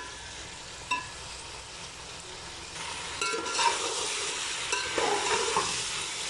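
Chicken pieces sizzling as they fry lightly in hot ghee in a metal pot, stirred with a metal spoon that scrapes and clinks against the pot. There is a clink about a second in, and the sizzling grows louder a little after three seconds in.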